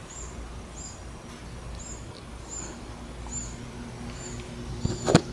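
A small bird calling, a short high chirp repeated steadily about every second, over a faint steady hum. About five seconds in, a single sharp knock.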